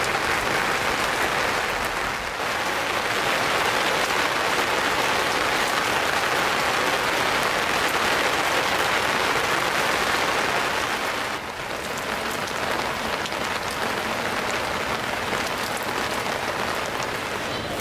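Rain falling steadily as a dense hiss, dipping briefly about two seconds in and again a little past eleven seconds.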